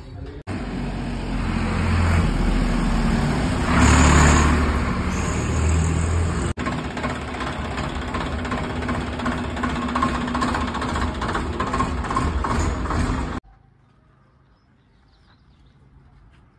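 Swaraj 855 FE tractor's three-cylinder diesel engine running, swelling louder twice in the first few seconds, then running steadily with a regular beat. It cuts off suddenly about three-quarters of the way through, leaving faint background noise.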